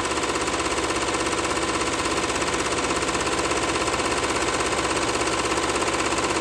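Fifteen-needle commercial embroidery machine stitching lettering into a knitted beanie, its needle bar running at high speed with a rapid, even chatter of needle strokes.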